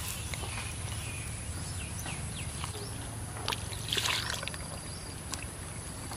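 Hands digging into wet mud at a crab burrow: scattered squelching and scraping, with a louder burst of wet mud sounds about four seconds in.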